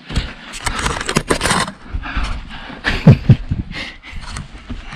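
Scraping and shuffling of a person crawling on his belly over sand and grit through a narrow gap under rock, with heavy breathing and two short strained grunts of effort about three seconds in.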